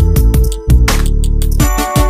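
Loud background music with a heavy, changing bass line and a steady beat.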